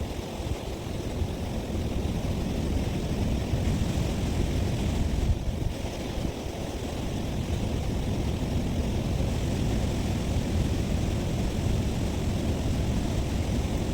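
Wind buffeting the phone's microphone: a steady, uneven low rumble.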